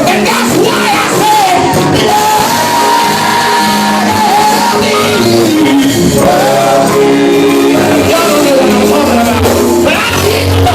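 Gospel group singing with instrumental backing, a lead voice holding one long high note in the first half before the lines move on.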